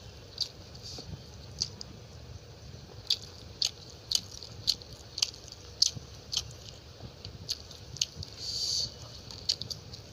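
Close-miked mouth sounds of a person eating chicken curry with rice: a string of short, wet chewing smacks, about one or two a second, with one longer noisy mouth sound near the end.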